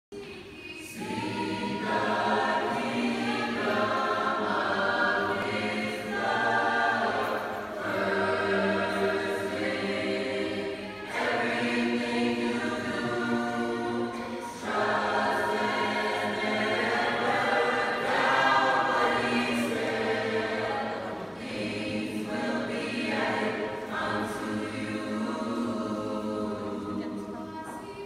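Mixed school choir of boys and girls singing in parts under a conductor, in phrases with short breaks between them. The singing begins about a second in.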